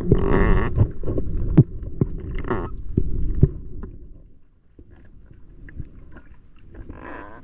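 Underwater sound picked up by an action camera in its housing: a low rumble of water moving past with many sharp clicks and a couple of short bubbly hisses, dropping much quieter after about four seconds to faint scattered clicks.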